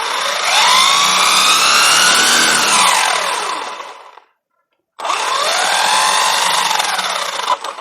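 3670-size 2650kv brushless motor and drivetrain of a 1/8 scale RC truggy whining as it is throttled up and back down twice, the pitch rising, holding and falling each time, with about a second of silence between the two runs.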